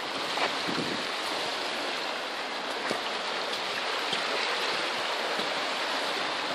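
Fast, swollen river in flood with ice along its banks, the current rushing steadily under a wooden footbridge.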